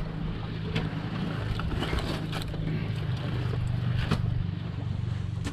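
Outrigger fishing boat's engine running steadily with a low hum, with a few faint knocks from the fish in the hold being handled.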